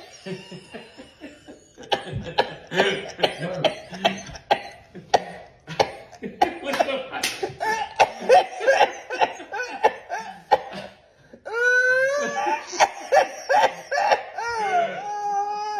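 People laughing and coughing in quick, irregular bursts. Near the end come longer, wavering high-pitched laughing cries.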